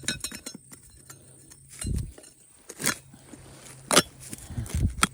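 Digging into stony ground with a pick: a few sharp crunching strikes and softer thuds, the loudest strike about four seconds in.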